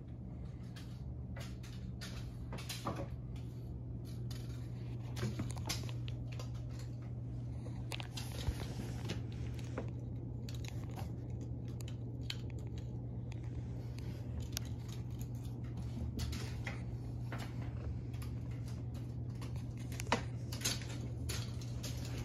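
Scattered light clicks and crinkles of a cat batting and pouncing on a piece of paper across a hardwood floor, over a steady low hum.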